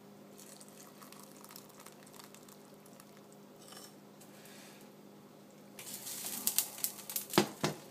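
Broth being ladled from a pot into a bowl: quiet liquid and utensil sounds, then a clatter of several sharp clinks against the pot and bowl in the last two seconds.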